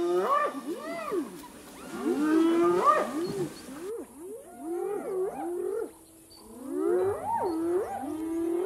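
Several spotted hyenas calling at once: overlapping calls that glide up and down in pitch, coming in bouts with a short lull about six seconds in.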